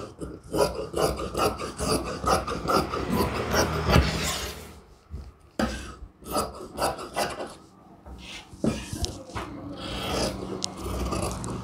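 Scissors cutting through lining cloth on a table in runs of quick snips, with a short pause about halfway, then cloth rustling and sliding as the cut piece is moved near the end.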